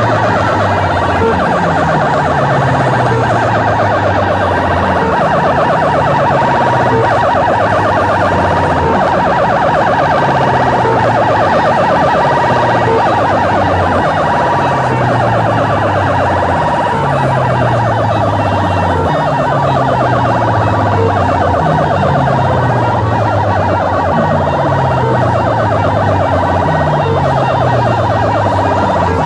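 Loud, heavily distorted siren-like DJ track blasted through stacks of horn loudspeakers, a falling low sweep repeating about every two seconds under a steady high wail.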